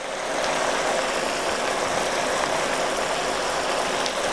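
Chicken, ginger and mushroom stir fry in its stock-based sauce sizzling and bubbling steadily in a wok over high heat.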